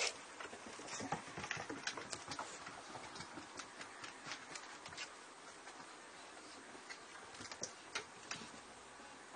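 Basset hounds' paws and claws clicking and pattering on wooden deck boards as they play chase, in quick irregular taps. The taps are busiest in the first half, with a few sharper ones near the end.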